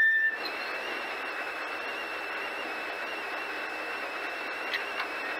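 Steady hiss with a faint, slightly wavering high whine from a rally car's helmet intercom line, with two light clicks near the end.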